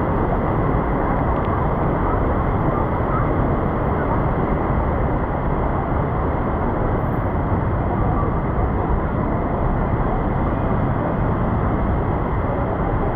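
Heavy rain falling: a loud, steady, dense hiss without a break.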